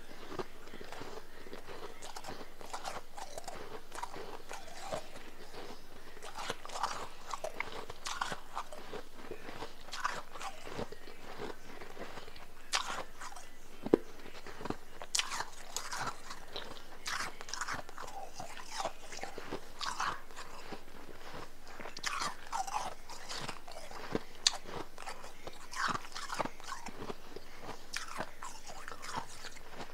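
A person biting into and chewing powdery, blender-crushed ice: irregular close-up crunches throughout, the sharpest crunch about halfway through.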